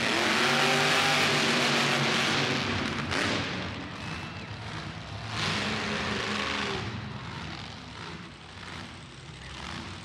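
Monster truck engine revving hard, loudest in the first three seconds, easing off, then surging again about five and a half seconds in before dropping away.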